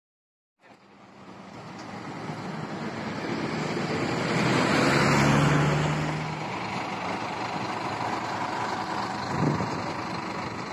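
Bus engine and road traffic noise. It grows louder to a peak about halfway through, as of a bus running close by, then settles to a steady rumble, with a brief louder knock near the end.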